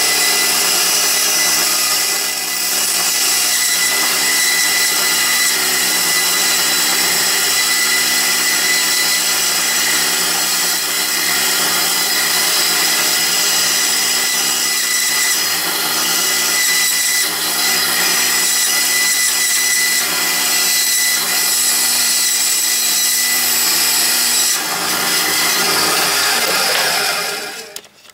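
Craftsman benchtop band saw running and cutting through a block of wood: a steady motor hum with a continuous cutting noise. The sound dies away near the end as the saw stops.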